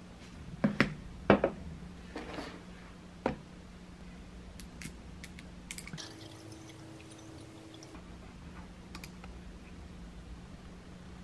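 Tableware set down on a table with a few sharp knocks, then water poured from a bottle into a glass of ice for about two seconds, with light clinks.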